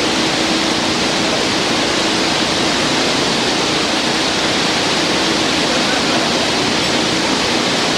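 Steady rushing of white-water river rapids, an even continuous noise of churning water.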